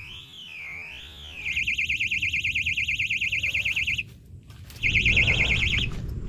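Electronic fishing bite alarm sounding a siren-like warbling tone. It switches to a rapid warble about a second and a half in, cuts off, then sounds again briefly near the end, signalling a fish taking the bait and pulling line. Low handling rumble is heard near the end.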